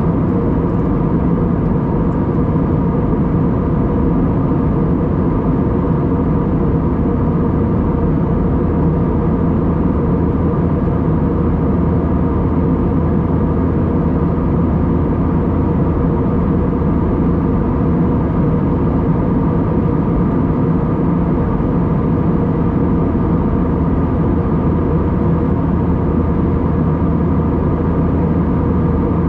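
Steady cabin noise inside an Airbus A320-232 airliner: its IAE V2500 jet engines and the rushing air, with a few fixed humming tones over an even rush, unchanging throughout.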